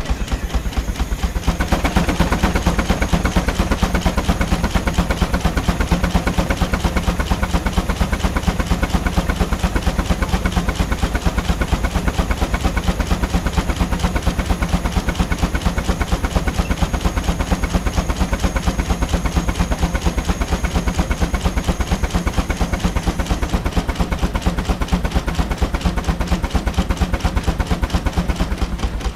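Steam traction engine working on the belt: a fast, steady rhythm of exhaust beats with steam hissing, the hiss growing louder about a second and a half in.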